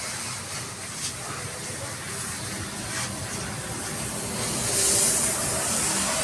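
High-pressure washer jet spraying water, a steady hiss that gets louder about five seconds in, with a low hum beneath it.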